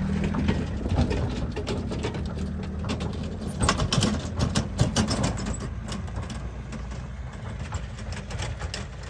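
SsangYong Rexton Sports pickup's diesel engine running under load as it tows a camping trailer up a snowy slope, the engine note growing fainter as it pulls away. A run of crunching clicks comes about halfway through.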